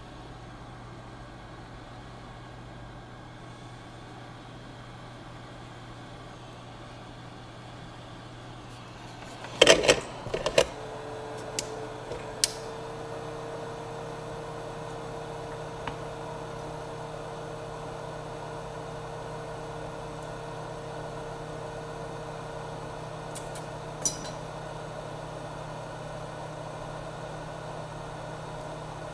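Handheld heat gun blowing with a steady hum. About ten seconds in there is a loud clatter of handling, after which a steady blowing hum with a clear held tone carries on. A single sharp click comes near the end.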